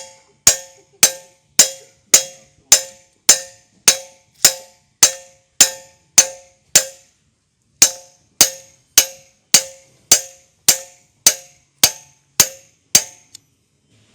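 A hammer striking steel in a steady rhythm, a little under two blows a second, each blow ringing briefly. It is driving a part home during work on a backhoe's front axle drive shaft and hub. The hammering pauses for about a second midway and stops near the end.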